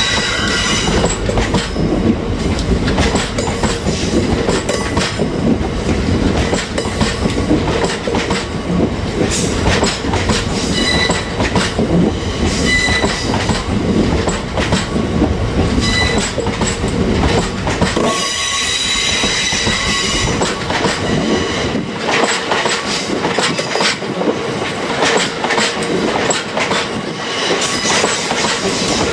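Open box wagons of a freight train rolling past: a steady rumble of steel wheels on rail with repeated clacks over rail joints, and a brief high wheel squeal several times. The deep rumble thins out a little past the middle.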